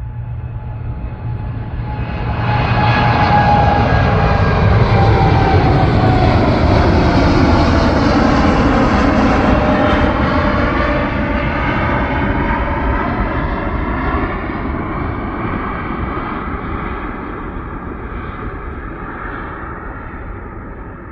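Boeing 747 freighter's four jet engines at takeoff power. The roar swells sharply about two seconds in as the jet passes, with a whine that falls in pitch, then slowly fades as it climbs away.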